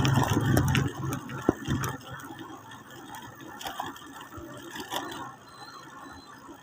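Pedal tricycle (padyak) rattling and clicking as it is pedalled, with a sharp click about a second and a half in. A low engine hum fades out about a second in.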